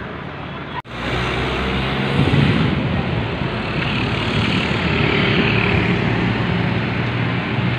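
A motor vehicle engine running close by amid street traffic noise. The sound drops out for an instant about a second in, then comes back louder.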